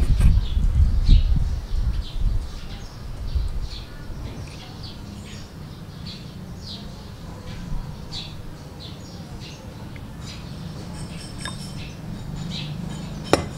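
A flock of small birds chirping and twittering in quick, scattered calls throughout. A low rumble fills the first couple of seconds, and a single sharp clink sounds near the end.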